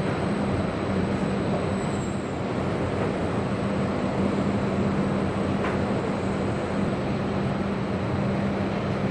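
Steady machinery noise of a car assembly plant: an even rumble with a steady low hum that does not change.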